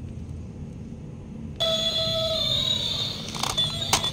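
Battery-operated toy elephant switching on about a second and a half in, its small speaker playing a shrill electronic tune of steady held notes, with a few sharp clicks near the end.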